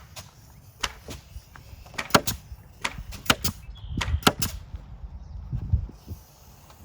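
Irregular sharp knocks and clicks, about a dozen, loudest around two and four seconds in, from work fastening cedar pickets to a fence.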